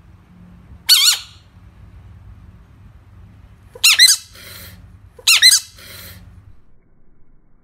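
A frog giving three high-pitched, wavering squeaks about 1, 4 and 5.4 seconds in, the last two each broken into two quick parts, over a low steady hum that stops near the end.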